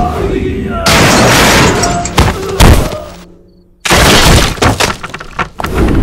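Film action soundtrack: a run of heavy impact and crash sound effects laid over background music. The sound drops almost to silence about three and a half seconds in, then comes back with a loud hit and a string of quicker knocks.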